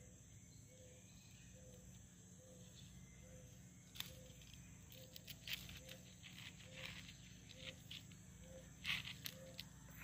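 Faint scratches and taps on a stone floor as a longhorn beetle is nudged with a leafy twig to turn it upright. They begin about four seconds in and are loudest near the end. Throughout, a soft low pip repeats about every two-thirds of a second in the background.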